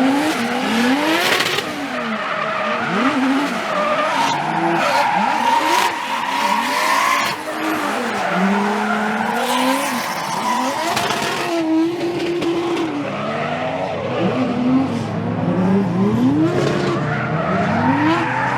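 Drift car engine revving hard, its pitch rising and falling repeatedly, with tyres squealing and skidding.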